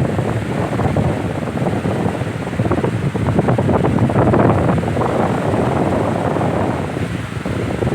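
Pedestal fan running at close range, its airflow rushing and buffeting against the microphone as a loud, uneven whoosh.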